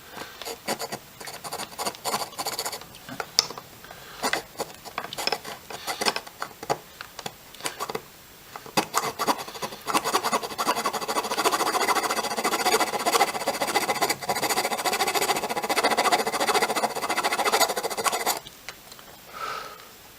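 Fingernail file rasping against the edge of a circuit board (a drone's power distribution board): scattered short strokes at first, then about eight seconds of rapid, steady back-and-forth filing that stops suddenly near the end, with one brief pass after.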